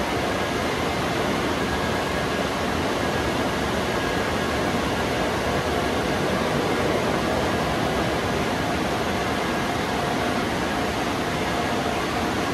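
Automatic car wash air-dryer blowers running, a steady rush of air with a faint fan hum.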